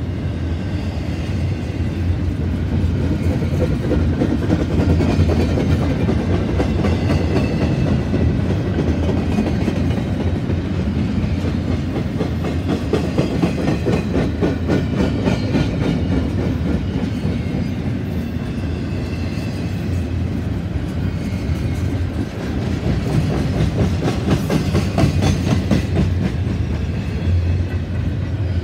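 Freight cars rolling past on the nearest track: a steady rumble of steel wheels on rail with rapid clickety-clack as the wheelsets cross rail joints, swelling louder a few times.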